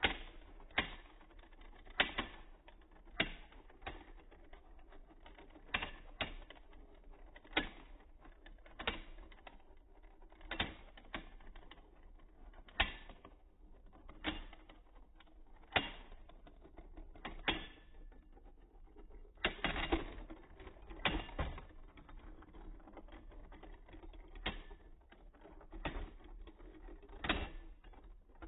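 Two Beyblade tops clashing as they spin in a plastic stadium: sharp clacks at uneven gaps of about a second, with a quicker run of hits about twenty seconds in.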